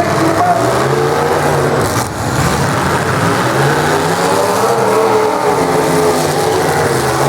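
Full-size demolition derby car engines revving hard, their pitch rising and falling again and again as the cars accelerate and back off.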